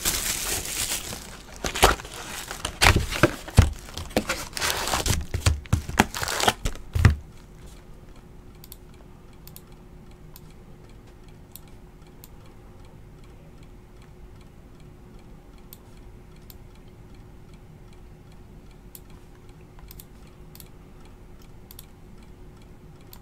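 Plastic wrap crinkling and tearing with knocks as a trading-card box is unwrapped and opened, for about the first seven seconds. After that, a quiet room with a faint steady hum and scattered faint ticks.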